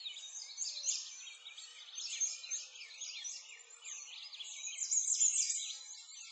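Many birds chirping and singing together, a dense chorus of quick, overlapping rising and falling calls.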